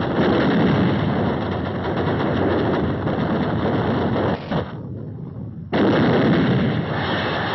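Warship guns firing in a sustained bombardment, a dense, continuous rumble of gunfire. The firing drops away for about a second midway, then comes back at full strength.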